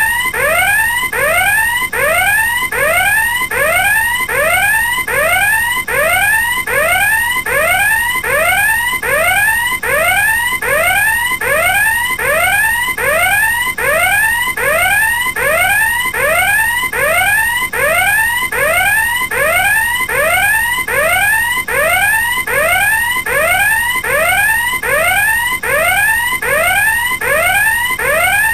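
Electronic alarm sounding continuously: a short rising whoop repeated about twice a second.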